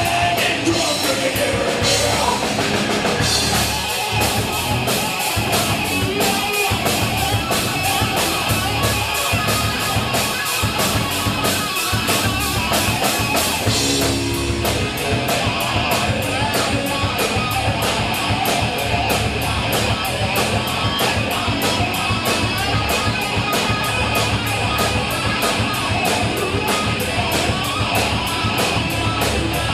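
Rock song playing, with a fast, steady drum-kit beat and guitar.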